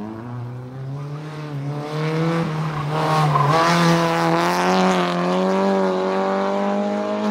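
VW Gol N2 rally car's engine revving hard under acceleration on a tarmac stage, its pitch climbing steadily with a brief dip about three seconds in.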